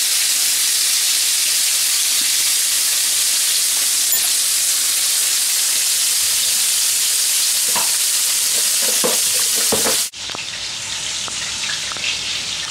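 Chicken pieces frying in hot oil in a pan: a steady, loud sizzle. About ten seconds in it drops suddenly to a quieter, duller sizzle.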